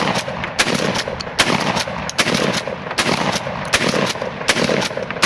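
Semi-automatic 12-gauge shotgun fired rapidly, a long string of shots about three a second, cycling without a jam.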